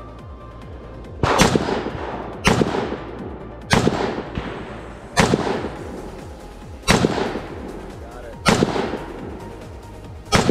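Rifle shots fired one at a time in slow aimed fire, seven about every second and a half, each trailing off in a long echo.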